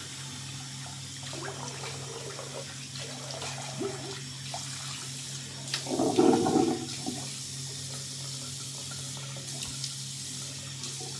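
Water running from a bathroom tap into a sink while someone rinses their face, with a louder splash about six seconds in.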